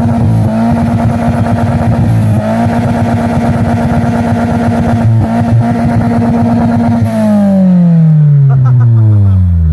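Mitsubishi Lancer engine revved and held at high revs through its exhaust, a steady loud note with a brief dip about two seconds in. The revs then fall away smoothly over the last few seconds.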